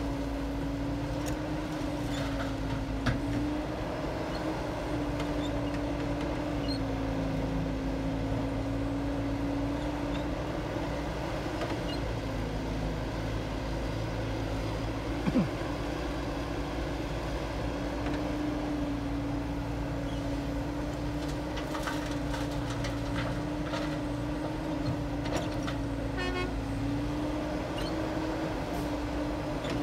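Caterpillar hydraulic excavator's diesel engine running under working load as it digs and loads earth, a steady drone with a humming note that wavers slightly in pitch. One brief sharp sound stands out about fifteen seconds in.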